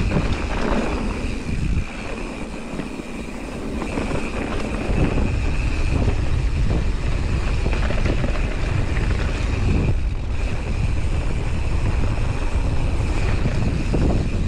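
Mountain bike riding down a dirt singletrack, heard from a camera on the rider: wind buffeting the microphone and the bike rattling over the trail, with a steady high buzz over it. The rumble grows louder about four to five seconds in as the bike picks up speed.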